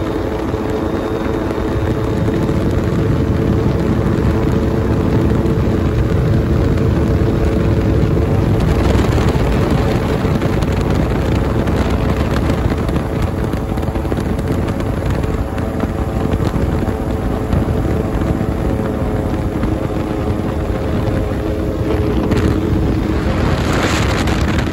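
Ultralight trike's engine and propeller running steadily in flight, with wind rushing over the microphone. Near the end the wind rush swells.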